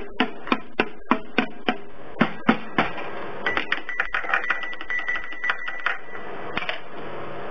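Plastic spinner disc on a toddler's musical activity toy clicking as it is turned by hand: sharp clicks about three a second, coming quicker in the middle, where a steady high tone sounds for about two and a half seconds.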